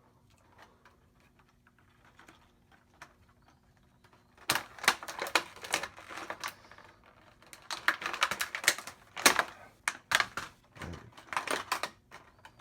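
Tin snips cutting through stiff toy packaging: faint ticks at first, then from about four seconds in a quick run of sharp clicks, cracks and snaps as the packaging gives way.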